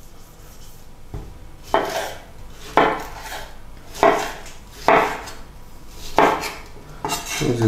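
Chef's knife slicing through a tomato and knocking on a wooden cutting board: about six cuts, roughly one a second.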